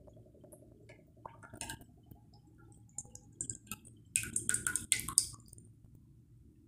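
Refined vegetable oil being poured from a plastic bottle into a wok on a lit gas stove. Soft drips and crackling clicks are scattered through it, with a denser run of crackles about four to five seconds in, over a low steady hiss.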